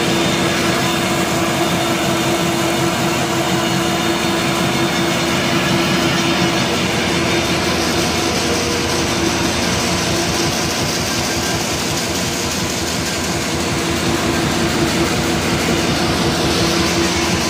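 Automatic flat-bottom paper bag machine with a four-colour flexo printing unit running: loud, steady mechanical noise with one constant humming tone.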